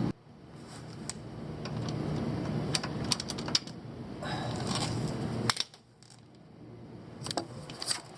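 Scattered sharp metallic clicks and light clatter over a low steady hum, broken by two abrupt cuts.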